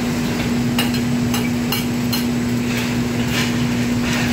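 A steel ladle knocks sharply against a wok about six times, spread unevenly through the moment. Underneath runs the constant steady hum of a commercial wok range and its exhaust hood.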